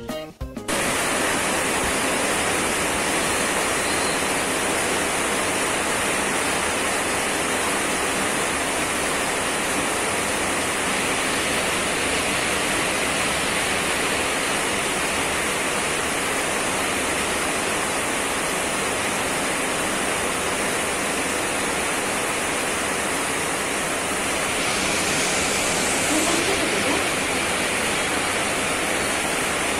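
Steady, even rushing noise with no rhythm, a little louder about 26 seconds in.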